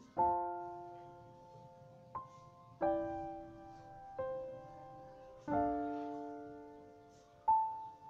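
Slow piano music: chords struck every one to two seconds, each left to ring and fade.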